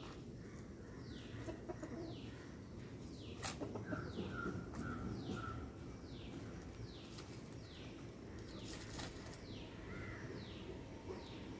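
Chickens foraging: a rooster and hens give short, soft repeated calls, with sharp rustles of scratching in dry leaf litter twice, once a few seconds in and again near the end.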